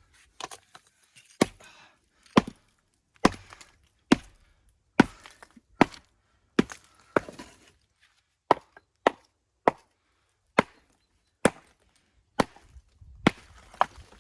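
Hammer striking stone in a steady run of sharp blows, about one a second, as stones are dressed to shape for the wall's tops (coping).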